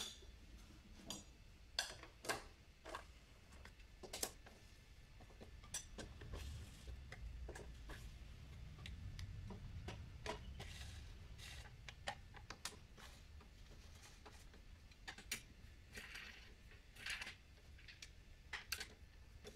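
Faint, irregular metallic clicks and clinks of a hand wrench working the bolts of a scooter's CVT side cover as they are tightened, with a low rumble for a few seconds in the middle.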